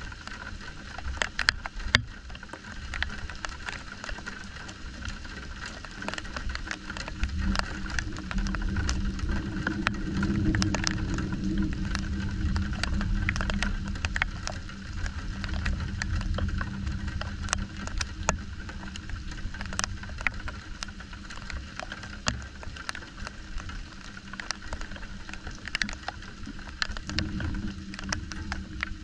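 Thunder rumbling low, swelling a few seconds after a lightning flash and dying away about halfway through, with another rumble starting near the end. Rain drips make many sharp little clicks throughout.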